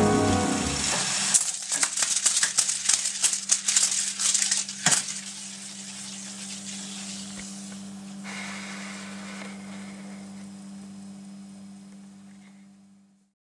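The song's ending: a flurry of rattling percussion clicks for about four seconds, closing with one sharper hit. A steady low tone with hiss follows and fades out near the end.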